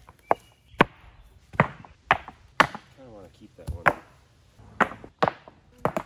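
Fieldstones dropped by hand into a dug trench, knocking against the rocks already lying in it: about ten sharp knocks at uneven intervals.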